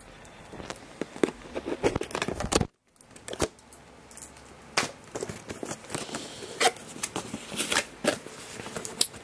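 Cardboard tripod box and its plastic bag being handled and opened: irregular rustling, scraping and crinkling with sharp little clicks, broken by a moment of silence about three seconds in.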